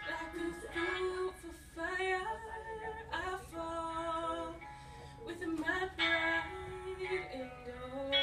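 A woman singing a slow song into a microphone, holding long notes with short pauses for breath between phrases.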